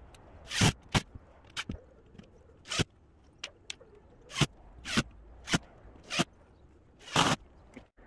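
About a dozen short, sharp scrapes at irregular intervals, like something rasping or sliding across a plywood subfloor.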